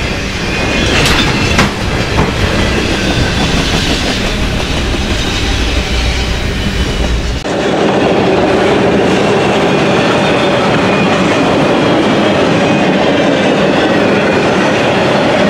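Autorack freight cars rolling past on the rails: a steady, loud rumble of steel wheels on track, with a couple of sharp clicks about a second in. About seven seconds in the sound changes abruptly to a thinner rolling noise with much less deep rumble.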